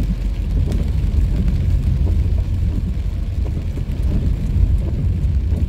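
Steady low rumble of a car driving on a wet road, heard from inside the cabin: engine and tyre noise with a faint hiss of rain and spray.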